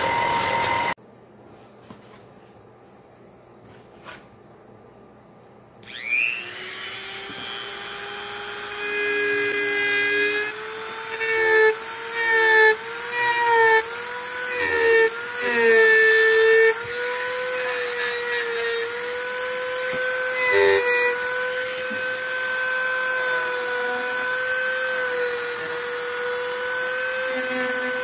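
A belt sander runs for about a second, then there is a quiet stretch. About six seconds in, a handheld rotary tool starts with a rising whine and settles into a high, steady run. Its pitch dips again and again as the bit carves into a small wooden lure body, then it runs steady.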